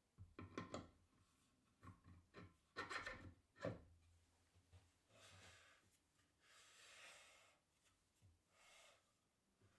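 Faint wooden knocks and scraping as a plywood attachment is set onto a plywood carriage and shifted into place: a run of short taps in the first few seconds, then soft rubbing of wood on wood.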